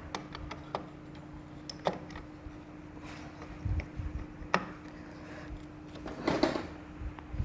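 Scattered small metallic clicks and taps of tools and engine parts being handled while a motorcycle clutch assembly is fitted, over a faint steady hum.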